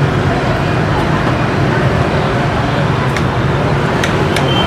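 Steady street traffic noise from a busy road, with a few sharp clicks from about three seconds in.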